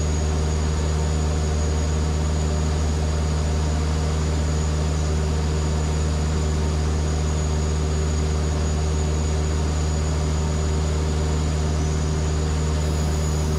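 Van's RV-7A's piston engine and propeller droning steadily, heard from inside the cockpit.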